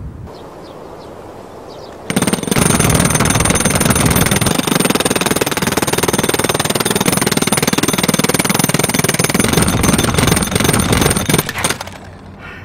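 Corded electric demolition hammer (jackhammer) starting about two seconds in and hammering continuously with rapid, loud blows, its chisel bit driving onto a Curv polypropylene hard-shell suitcase lying on concrete; it stops near the end.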